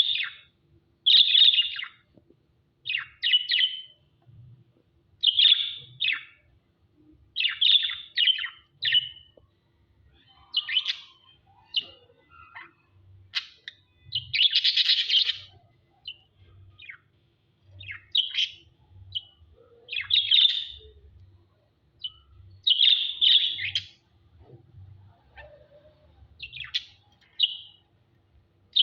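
Pet birds chirping in short, high bursts every second or two, with one longer, harsher call about halfway through.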